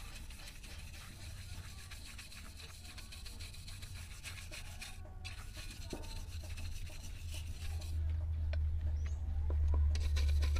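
Wire brush scrubbing a wet brass letter in quick scratchy strokes, pausing briefly about halfway through. A low rumble swells near the end, as the brushing falls quiet.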